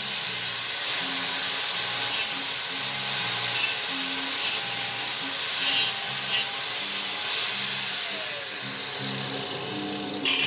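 Cordless angle grinder cutting through steel, a steady high-pitched noise of the disc on the metal. Near the end there is a short loud burst and the cutting sound drops away.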